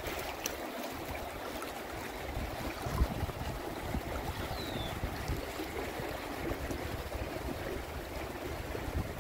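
River water rushing and splashing through a riffle around a small floating boat, with a low wind rumble on the microphone. A single thump comes about three seconds in.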